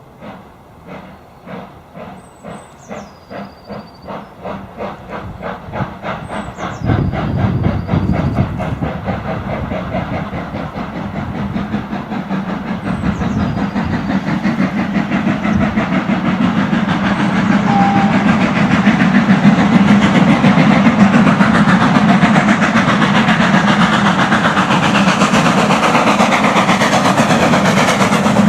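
Double-headed steam train working hard: rhythmic exhaust beats grow louder and closer together, then merge into a loud, steady rush of steam and running gear as the train comes up close.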